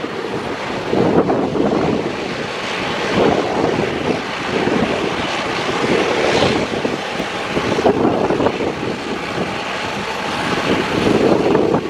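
Jet airliner passing low on its landing approach, its engine rush rising and falling, mixed with gusty wind buffeting the microphone.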